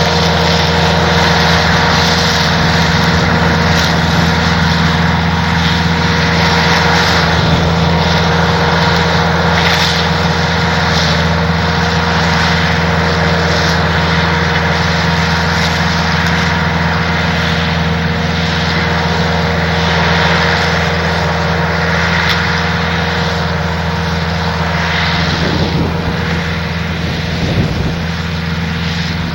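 John Deere 45 combine running steadily in the field, its engine and threshing machinery making a constant drone that eases a little near the end.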